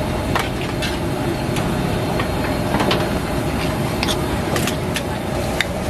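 Metal utensils clicking and scraping: a ladle in a steel pot of rice-roll batter and a spoon scooping minced pork from a bowl, a sharp click every second or so over a steady low rumble.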